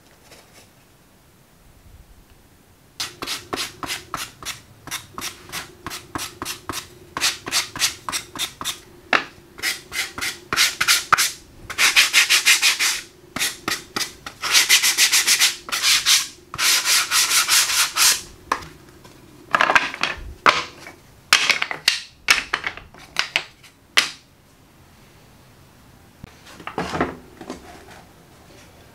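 A hand rasp with a metal blade scraping the edge of an MDF board in quick back-and-forth strokes, several a second, with a few longer continuous scrapes in the middle. It starts about three seconds in and thins to a few last strokes near the end.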